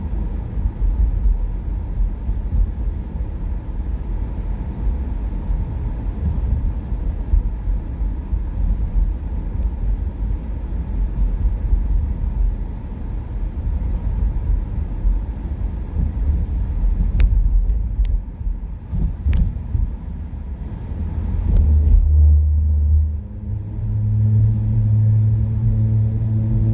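Low rumble of a car driving, road and engine noise heard steadily, with a few faint ticks in the middle. Near the end a steady low hum takes over.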